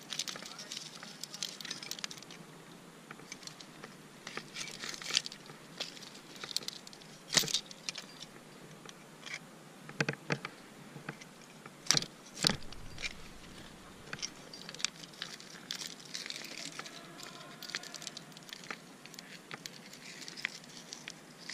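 Metal climbing gear jangling and clicking, with scattered rustles and knocks. Several sharper clacks stand out around the middle.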